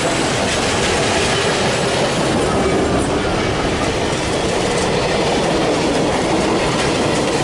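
Union Pacific water tenders and passenger cars rolling past at close range: a steady, unbroken clatter and rumble of steel wheels on the rails.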